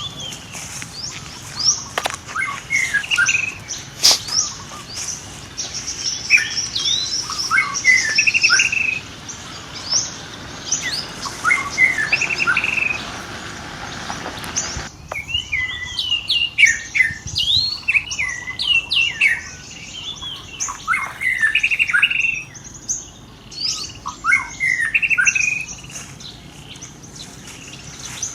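Many short, high chirping calls from small animals, some sweeping quickly up and down in pitch, overlapping in a busy chorus. The steady background hiss drops away suddenly about halfway through.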